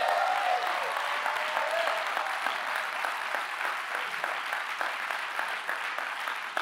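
Congregation applauding, with a few voices calling out in the first couple of seconds; the clapping slowly eases off.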